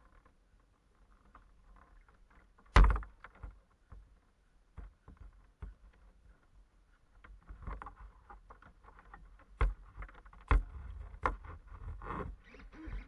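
Handling noise on a water-filled RC boat hull carried by hand: scattered knocks and bumps with water sloshing inside, one loud thump about three seconds in and more frequent knocks in the second half.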